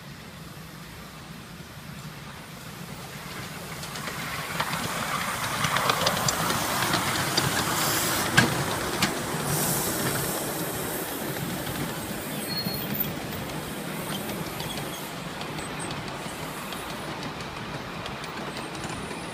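Miniature railway train, an A4-class steam locomotive hauling passenger carriages, approaching and running past, its wheels clicking over the rail joints. The sound builds over the first few seconds, is loudest about six to ten seconds in with a sharp clack about eight seconds in, then slowly fades as the carriages roll away.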